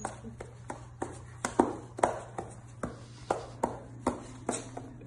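A golden retriever's claws clicking and tapping on a hard floor as it steps about, in sharp irregular taps roughly two a second.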